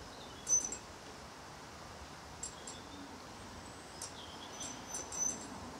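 Faint steady background hiss with a handful of short, high-pitched ticks scattered through, the most prominent about half a second in and a small cluster around four to five seconds.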